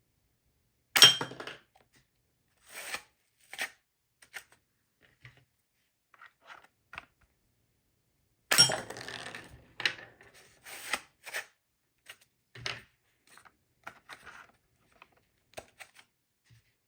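Cardboard craft pieces being handled on a work surface: two sharp knocks, about a second in and again about eight seconds later, with scattered smaller taps, rustles and clicks in between.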